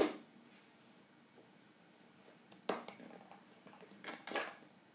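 Parts of a small cordless impact wrench's brushless motor and planetary gear housing being handled by hand: a sharp click at the start as the housing comes off the motor shaft, then two short scraping rustles of plastic and metal about three and four seconds in.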